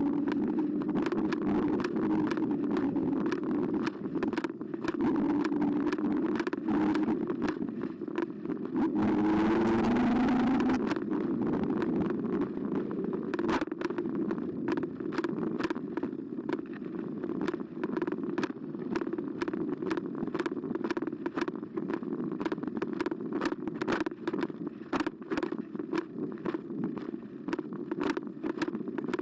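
Carbo X e-bike riding along a path, heard from a camera mounted on the bike: a steady rolling hum with a motor whine that rises and falls, and constant sharp clicks and rattles from bumps. About nine seconds in, a rushing hiss lasts roughly two seconds.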